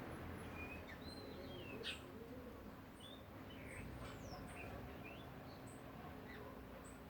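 Small birds calling: short scattered chirps and brief whistles, some sliding down in pitch and some very high, over a faint low background hum.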